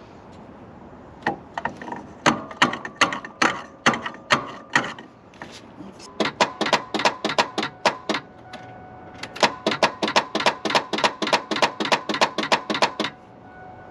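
Quick metal-on-metal taps on a truck's starter motor, in three runs of several blows each with a slight ring: the starter is being struck with a tool to jar it into cranking the engine.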